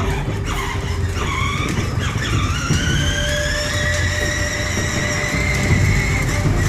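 Electric motor of a children's battery-powered ride-on motorcycle whining as it drives off: the whine dips about a second in, then climbs steadily in pitch over several seconds as the toy picks up speed.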